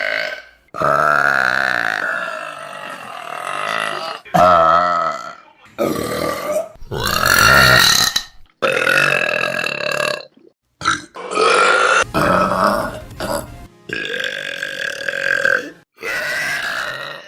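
A rapid run of about ten loud, drawn-out burps, one after another. Each one starts and cuts off abruptly, and several waver in pitch as they go.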